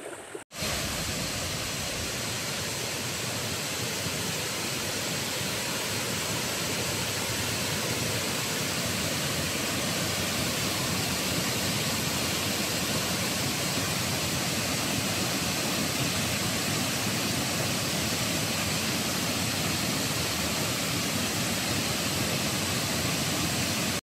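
Steady, even rush of water pouring without a break, starting abruptly about half a second in.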